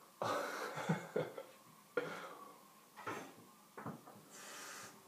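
Shavette straight razor scraping through a lathered beard in a series of short strokes, the longest about a quarter second in and shorter ones near two, three and four seconds in, with a higher hiss near the end.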